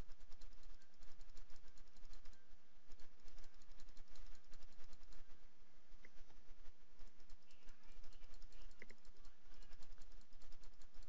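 Rapid, steady clicking of a computer mouse and keyboard keys, each click dropping a stitch point while drawing stitches by hand in embroidery digitizing software.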